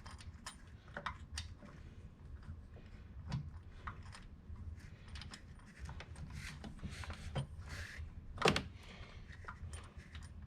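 Small metal parts and hand tools clicking and clinking as they are handled, irregular and fairly quiet, with one louder knock about eight and a half seconds in.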